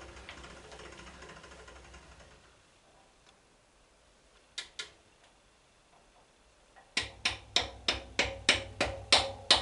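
Head of a 7045 milling machine being wound up by hand: after a quiet stretch with two single clicks, a regular series of sharp clicks begins about seven seconds in, about three a second.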